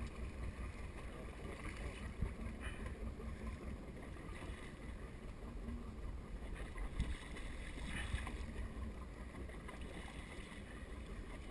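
Water splashing and sloshing beside a small boat as a hooked shark thrashes on the leader at the surface, over a steady low wind rumble on the microphone, with a few dull knocks.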